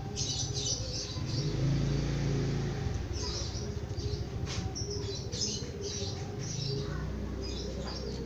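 Small birds chirping repeatedly over a low hum that comes and goes, sounding about a second in and again near the end.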